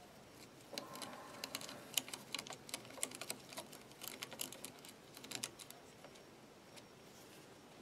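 Faint run of small, quick clicks and scrapes as a screwdriver drives a tiny screw into the plastic brush box of a Lucas ACR alternator. The clicking stops a couple of seconds before the end.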